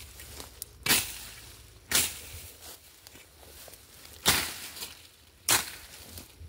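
Footsteps crunching through tall dry grass and weeds, four loud steps at an uneven pace of roughly one a second, with rustling between them.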